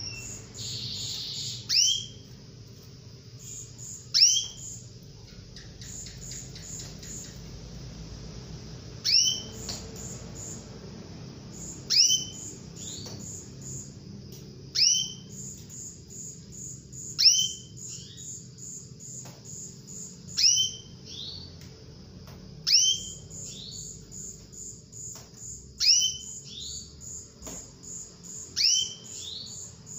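Female canary calling: a sharp call falling in pitch, repeated about ten times, every few seconds, with runs of quick high pips between the calls.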